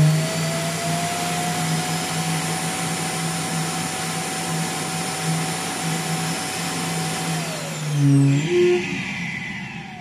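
iRobot Roomba i7's self-emptying Clean Base suction motor running, very loud, while it empties the docked robot's bin. Its whine falls in pitch about seven seconds in and the noise stops about a second later, with two short tones.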